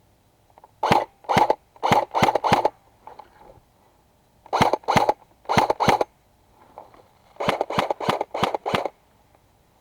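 An airsoft gun fired in single shots, in three quick strings of about five, four and six shots, roughly three or four shots a second, with pauses between the strings.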